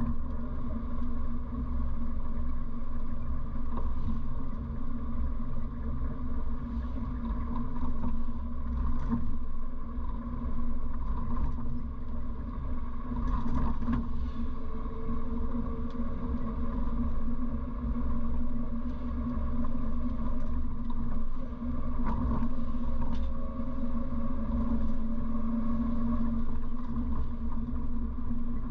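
A 1957 Morris Minor's 948 cc four-cylinder engine running as the car drives, heard from inside the cabin with road rumble. The engine note rises gradually through the second half.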